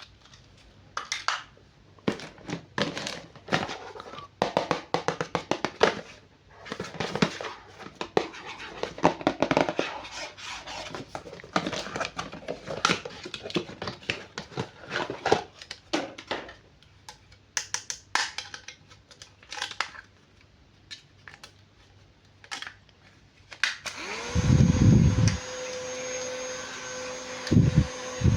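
Toy packaging being handled and opened: plastic and cardboard crinkling, with irregular clicks and rustles. Near the end a steady hum begins, with a few heavy thumps.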